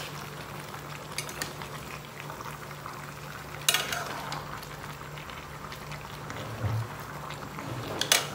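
A pot of vegetables boiling steadily on the stove, with two sharp clinks of a utensil against the pot, one a few seconds in and one near the end.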